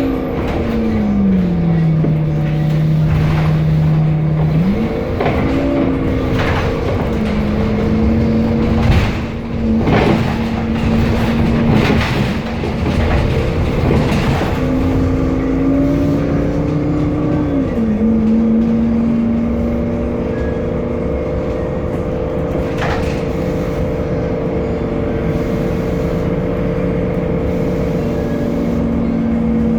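Temsa Avenue LF city bus running, its DAF diesel engine and ZF Ecolife automatic gearbox giving a humming note that falls about a second in, climbs near five seconds and steps back down as the gearbox shifts, over a steady rumble with scattered rattles and knocks.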